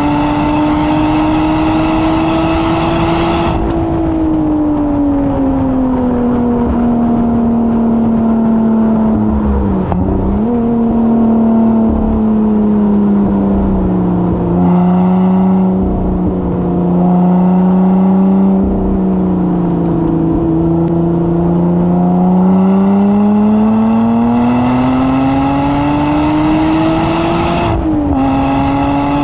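Engine of a track-day vehicle heard onboard through a lap. It pulls hard for the first few seconds, then eases off with the pitch falling through the middle, with a brief dip in pitch about ten seconds in. It pulls hard again with a steadily rising note from about twenty seconds, and the pitch drops sharply near the end, like a gear change.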